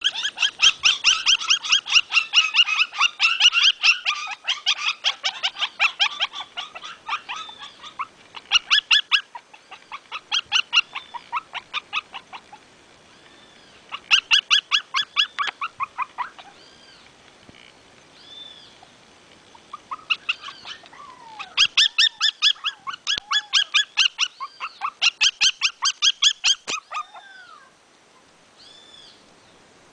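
Small puppies yapping and whimpering: long runs of rapid, high-pitched yips, broken by short rising-and-falling whines, fading near the end.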